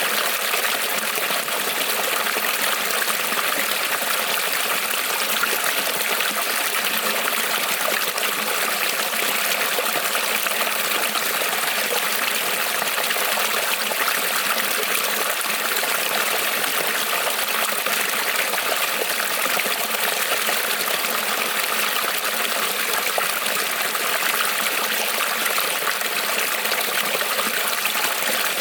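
Creek water rippling and trickling over stones, a steady, even rush with no breaks.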